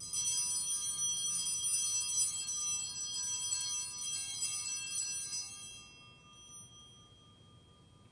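Altar bells rung at the elevation of the consecrated host: a bright jangle of several high bell tones that starts suddenly, rings on for about five seconds, then dies away around six seconds in, leaving a faint ring.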